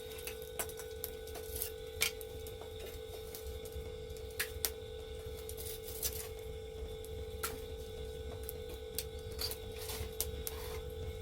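Charcoal brazier fire grilling pork, crackling with scattered sharp pops and clicks at irregular intervals as fat drips onto the coals, over a steady faint hum.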